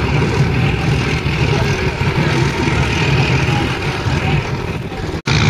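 Steady drone of motorboat engines with the low rumble of open-air noise, cutting out for an instant near the end.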